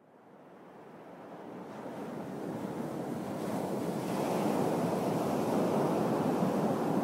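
Ocean surf: a steady rushing noise of waves that fades in from silence over the first few seconds, then holds level.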